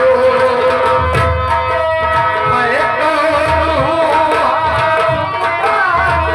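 Birha folk music: tabla-style hand drumming in a steady rhythm under a sustained, wavering melodic line.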